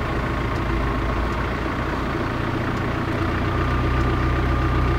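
Vehicle engine running steadily, heard from inside the cabin as an even low drone with a faint steady whine above it.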